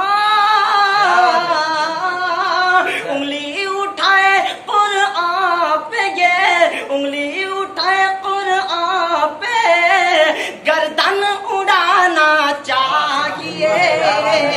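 A young man singing a line of an Urdu nazm unaccompanied, in a high voice with long held notes bent up and down, broken only by short pauses for breath.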